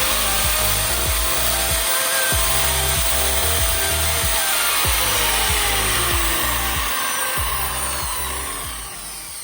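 Angle grinder test-running after its damaged bearing was replaced: its whine climbs in pitch as it spins up at the start, holds, then drops as it winds down over the second half. Background music plays underneath.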